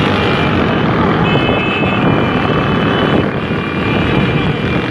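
Loud, steady noise of many motorcycle engines running together at speed, with wind on the microphone.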